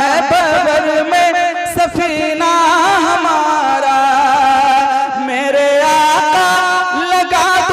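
A man singing a naat, drawing out long ornamented phrases with wavering, curling pitch in a melismatic style.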